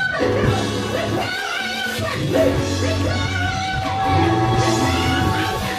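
Live gospel church music: a band with a steady bass under voices singing, with one long held note through the second half.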